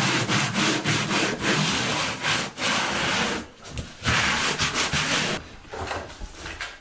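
Hands rubbing and scraping across Schluter DITRA plastic tile-underlayment membrane on the floor, pressing it down in quick rough strokes: a long spell, a short pause, then a second shorter spell, followed by quieter handling noises.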